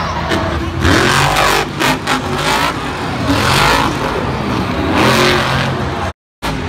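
Monster truck engine revving hard in repeated surges, its pitch climbing and falling with each blip of the throttle. The sound cuts out completely for a moment near the end.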